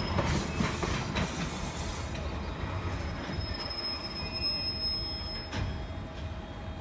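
Empty container flat wagons rolling slowly over yard track, with a low rumble and wheels clicking over rail joints during the first two seconds. A thin, high wheel squeal comes in about halfway through, lasts about two seconds, and is followed by a single knock.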